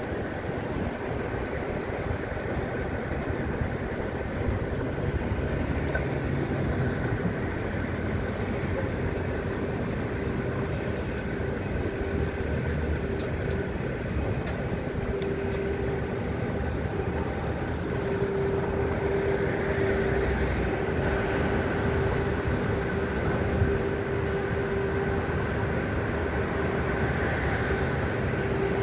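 Steady city street noise: traffic and a machine hum with a constant drone tone that grows somewhat louder past the middle.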